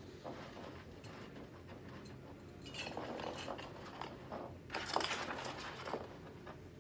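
Clear plastic face shield rustling and clicking against the other shields as it is hung on a wall hook, with a burst about three seconds in and a louder one about five seconds in.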